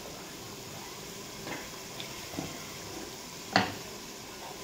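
Tomato-and-yogurt masala sizzling and bubbling in an aluminium pressure-cooker pot, the yogurt letting off its water as the tomatoes soften. A few short knocks over it, the sharpest about three and a half seconds in.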